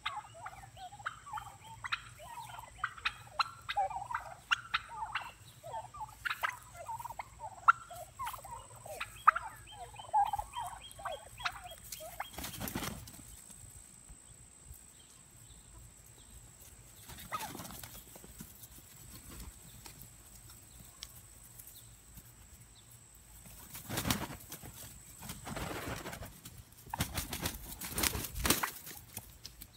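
A flock of domestic turkeys calling, a quick string of short calls for the first twelve seconds or so as a small dog chases them. After that come a few brief bursts of rustling noise.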